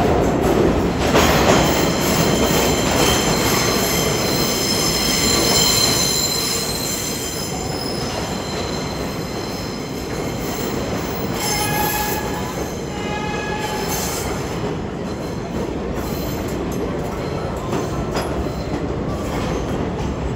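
Vintage R33/R36 'Redbird' subway train running through an underground station. High steel wheel squeal rings over the rumble and clatter for the first several seconds, two short pitched tones sound near the middle, and a steadier rumble follows.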